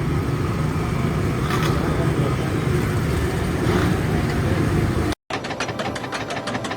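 Steady low mechanical rumble. About five seconds in it cuts off abruptly, and after a brief gap a rapid, regular mechanical pulsing of about six beats a second begins.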